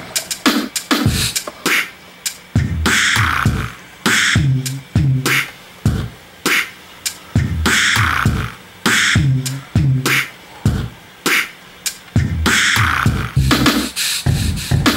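Beatboxing: vocal percussion in a rhythmic pattern of low kick-like thumps and hissing snare-like hits, a few each second.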